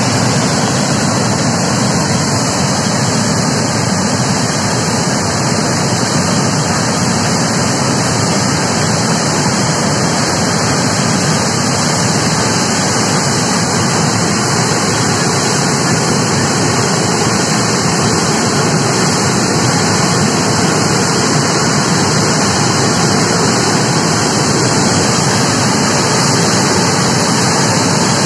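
River in full flood pouring over a dam spillway: a loud, steady rushing roar of turbulent muddy water that never lets up.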